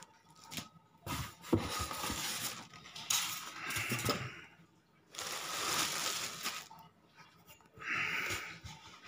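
Plastic wrapping and a cardboard box being handled: about four bursts of crinkly rustling with a few light knocks, as the plastic is pulled off a boxed 12-inch subwoofer.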